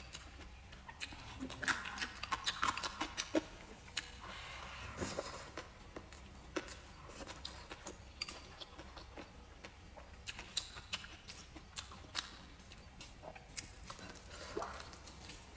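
A person chewing and eating at close range: a string of soft, wet mouth clicks and smacks, thickest and loudest about two to three seconds in.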